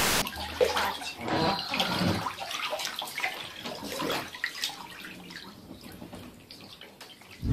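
Water splashing and sloshing in a bathtub in scattered, irregular splashes that gradually fade. It opens with the last instant of a hiss of static.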